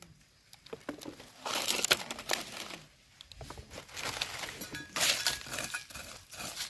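Dry leaf litter and soil crunching and rustling in several irregular bursts as the forest floor is scraped away to uncover buried hed phao (earthstar) mushrooms. The bursts are loudest about two seconds in and again about five seconds in.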